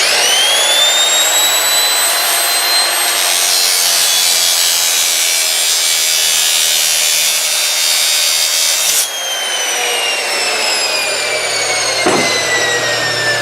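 A handheld rotary power tool spins up with a rising whine and cuts a slot in a piece of copper pipe with a gritty grinding noise. It is switched off about nine seconds in and winds down with a slowly falling whine, and there is a single knock near the end.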